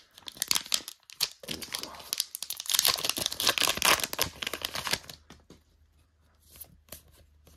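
Shiny foil trading-card pack torn open and crinkled by hand, the wrapper crackling loudest about three to four seconds in. After about five seconds it goes quieter, with a few light rustles and taps as the cards are handled.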